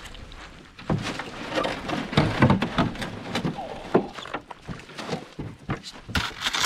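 Canoe being boarded and pushed off from the shore: irregular knocks, thuds and scrapes against the hull, then kayak-paddle strokes in the water near the end.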